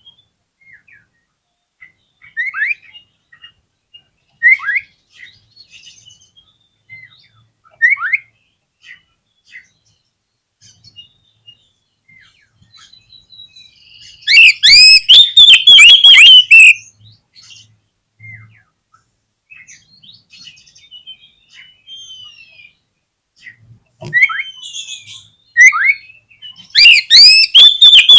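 Oriental magpie-robin singing: short down-slurred whistles about every two seconds, then a loud, fast run of sweeping notes about halfway through, and another near the end.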